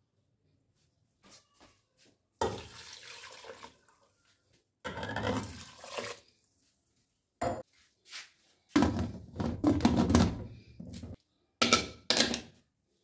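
Water poured and splashing into an aluminium pressure cooker full of chopped onions, tomatoes and spices, in a few separate spells. Near the end come sharp metal clanks as the lid goes on.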